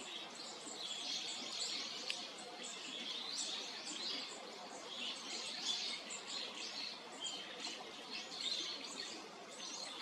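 Wild birds chirping and twittering: many short, high-pitched calls overlapping throughout, over faint outdoor background noise.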